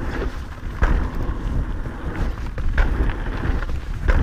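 Mountain bike riding fast down a dirt trail: a steady rumble of tyres and wind buffeting the action camera's microphone, with sharp knocks as the bike rattles over bumps, about a second in, near three seconds and near the end.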